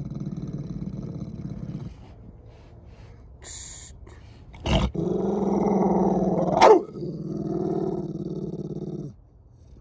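Pit bull growling low and defensively out of fear: one growl of about two seconds, then, after a sharp click a little before halfway, a longer, louder growl that peaks briefly and stops about a second before the end.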